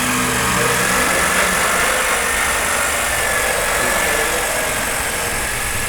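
Electric woodworking power tool running continuously: a steady motor whine over a broad hiss, the whine dipping slightly in pitch a couple of seconds in.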